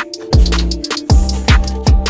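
Background electronic music with a deep bass beat whose hits slide down in pitch, about two a second, over crisp high clicks.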